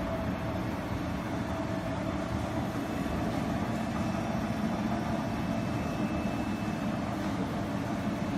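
Steady hum and rumble of running factory machinery, with a faint steady tone above it; no punch strokes are heard.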